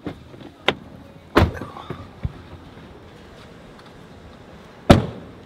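Car doors and handling knocks as people climb out of a vehicle: a few sharp thumps, the loudest about a second and a half in and near the end, the last most likely a car door shutting.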